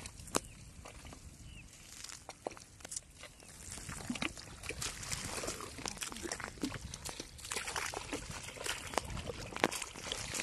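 Wet mud squelching and sloshing as a person wades through it and digs into it with bare hands: irregular wet slaps and sucks, busier from about four seconds in.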